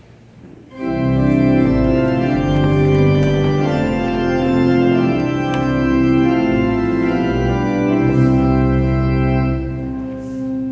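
Church organ starting suddenly about a second in and playing slow, held chords.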